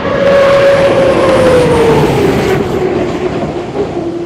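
Unlimited hydroplane's gas turbine engine running at speed, a loud rushing roar with a whine that falls steadily in pitch from about one second in, the sound easing off near the end.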